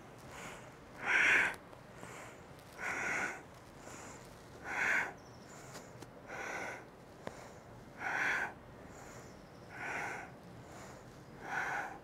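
A woman breathing audibly and forcefully in a steady rhythm, paced with side-to-side crunches. There are seven breathy rushes, about one every second and three-quarters.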